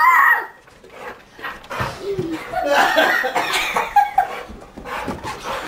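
A child's high squeal at the start, then young children laughing and chattering, with scattered light knocks and taps.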